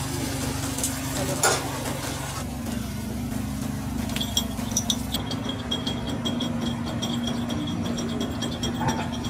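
A steady machine hum with a few light clinks and clicks. From about four seconds in, a faint high tone with regular light ticks runs over it.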